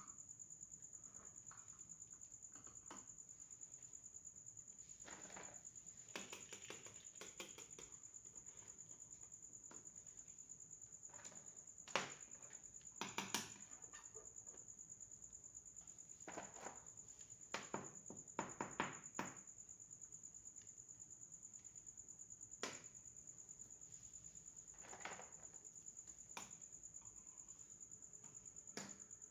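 Small plastic toy kitchen pieces handled and unpacked: scattered faint clicks, taps and rustles, with a few sharper clicks about twelve and eighteen seconds in, over a steady high-pitched whine.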